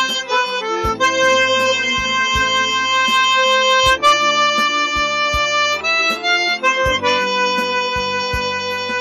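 Chromatic harmonica playing a slow melody of long held notes over a backing track, with a kick drum thumping steadily underneath.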